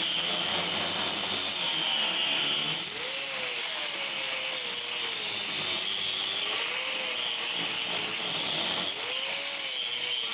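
Angle grinder grinding into the root of a steel butt joint in structural angle, digging down to the fillet weld on the back to open it up for a full-penetration weld. The grinder's pitch dips and rises as it is leaned into the steel.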